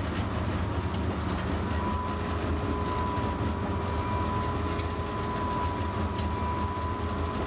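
Diesel locomotive cab noise while running: steady engine rumble and wheels on rail with a few faint clicks. A steady high whine comes in about two seconds in and holds.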